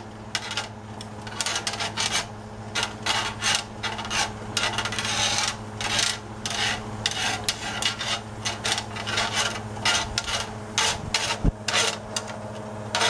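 Metal tongs scraping and rubbing across the ridges of a grill skillet in many quick, irregular strokes as butter is worked into a pan sauce. A steady low hum runs underneath.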